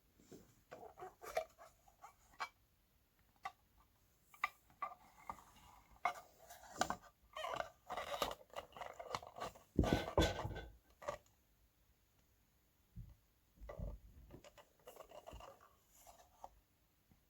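Hands working on speaker parts: irregular clicks, scrapes and rustling as pieces are handled and fitted, with a dull thump about ten seconds in.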